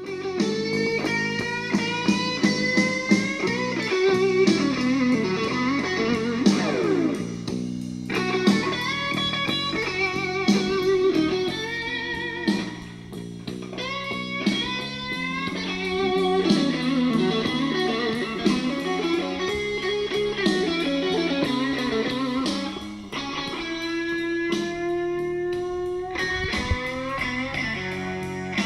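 Music led by an electric guitar, with notes bent up and down, starting suddenly.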